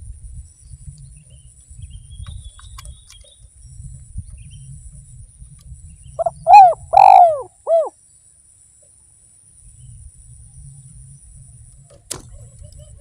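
Spotted dove (derkuku) cooing once: a short phrase of about four notes, the third the longest, over a low rumble. A sharp click near the end.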